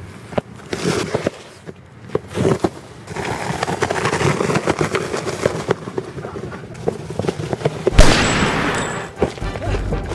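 Rapid gunfire, shot after shot in quick bursts like automatic fire, with one much louder bang about eight seconds in that trails off.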